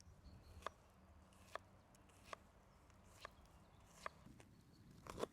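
Near silence, broken by six faint, short clicks, a little under one a second.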